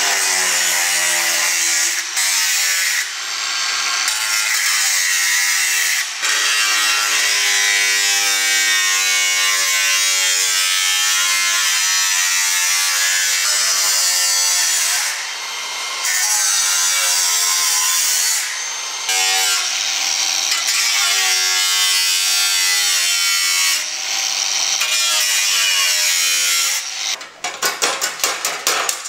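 Angle grinder with a thin cutting disc slicing through a pressed-steel pedal-car body panel, a loud hissing whine whose pitch wavers as the disc bites. It breaks off briefly several times, and a quick run of clicks comes near the end.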